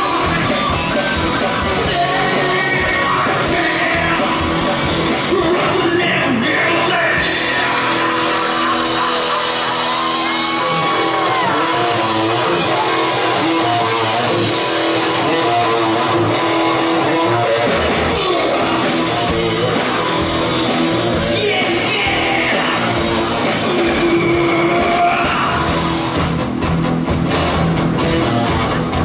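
Live rock band playing through a PA: drums, electric bass and guitar under a vocalist singing and shouting into a microphone. The deep bass drops away for about ten seconds in the middle, then comes back in.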